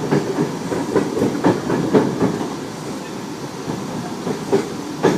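Tobu 30000 series electric train running, heard inside the car: a steady rumble from the wheels on the track with irregular knocks and clatter as they pass over rail joints.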